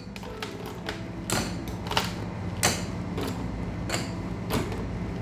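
Ice cubes placed one by one into a tall drinking glass, a series of sharp clinks of ice against glass and ice, about one every half second, as the glass is filled to the top.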